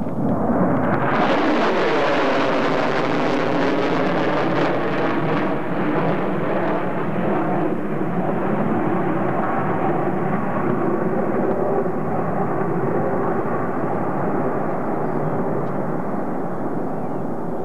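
Jet noise from a B-1B Lancer's four General Electric F101 afterburning turbofans as the bomber climbs away, loud and starting about a second in. The hissing top end fades after a few seconds, leaving a steady rumble with a slow phasing sweep through it as the aircraft recedes.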